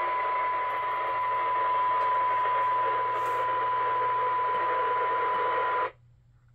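A radio receiver's speaker plays a steady 1 kHz test tone buried in hiss: a weak test signal, a fraction of a microvolt, sitting right at the receiver's threshold. Near the end the tone and hiss cut off suddenly as the squelch closes and the signal drops out.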